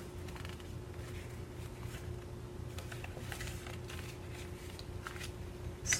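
Faint, scattered rustling of paper and card craft items being handled, over a steady low hum.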